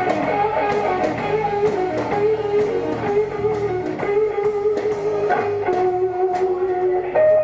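Live blues-rock trio playing: electric guitar holding sustained lead notes over bass guitar and drums, with regular drum and cymbal hits. Near the end the guitar moves up to a higher held note.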